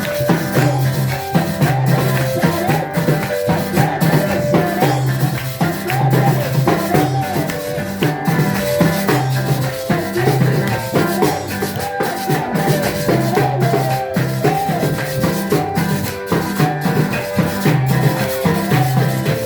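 Worship music with maracas shaking over drums and a bass line that steps between notes, a steady beat throughout.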